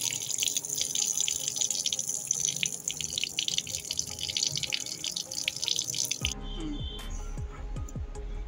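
Water running from a plastic tap and splashing, with a crackling spatter, stopping suddenly about six seconds in. A low hum and a few falling tones follow, over faint background music.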